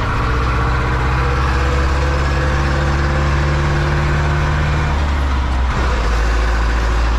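Zetor 7245 tractor's four-cylinder diesel engine running steadily under load, pulling a trailer of wheat, heard from inside the cab. About five seconds in the engine note changes, with a brief knock just after.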